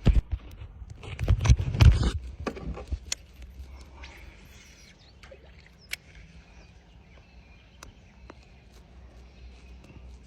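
A quick run of loud knocks and thuds in the first few seconds, then a few scattered sharp clicks, one standing out about six seconds in, over a faint low rumble.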